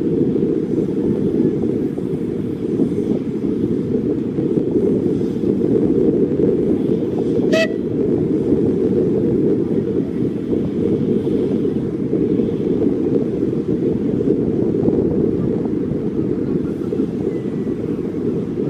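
Wind buffeting the microphone with a steady rumble throughout. A little under halfway through, the narrow-gauge steam locomotive gives one very short toot on its whistle.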